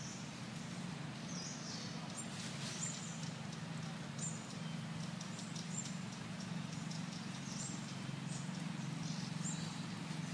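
Outdoor background with a steady low hum, and brief faint high-pitched chirps or squeaks now and then.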